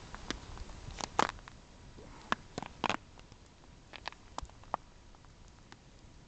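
Campfire crackling: irregular sharp pops and snaps, the loudest about a second in and a cluster around two to three seconds.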